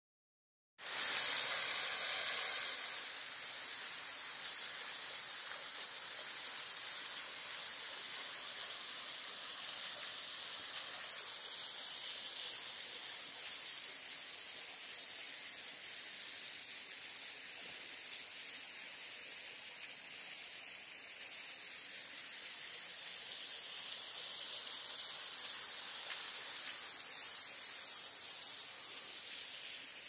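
Waterfall's steady rush of falling water, mostly high and hissy, starting abruptly about a second in.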